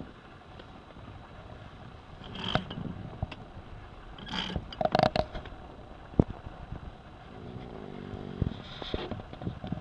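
A person snoring, one long snore near the end, over a faint bed of wind and water. A few sharp knocks and scrapes of gear, the loudest about halfway through, come before it.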